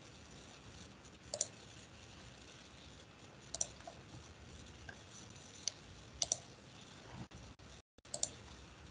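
Faint computer clicks over a quiet online-meeting audio line: about five short, sharp clicks spaced a second or two apart, some in quick pairs. The audio briefly cuts out shortly before the last pair.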